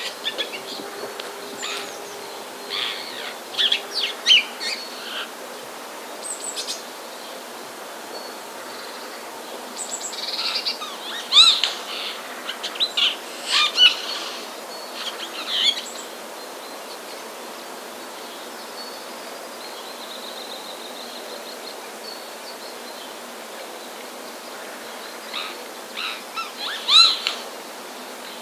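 Bird calls: short chirps and clicks in three groups, about three seconds in, through the middle, and again near the end, with quieter stretches between.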